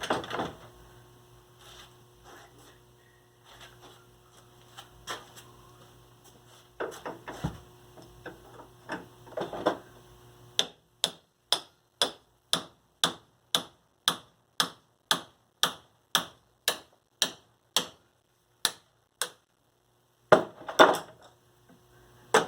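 Small hand tools working on a hard drive's casing: scraping and light knocks for about ten seconds, then a steady run of sharp, evenly spaced clicks, about three a second, for around nine seconds, and a louder rattle of handling near the end.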